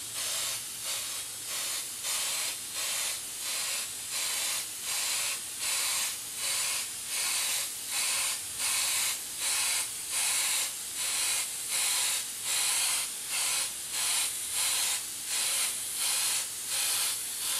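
Airbrush hissing as it mists paint onto a T-shirt, the air swelling and easing in even pulses about three every two seconds as the trigger is worked in short strokes.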